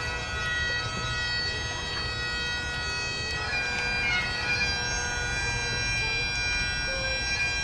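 Bagpipes playing a melody over their steady drone tones.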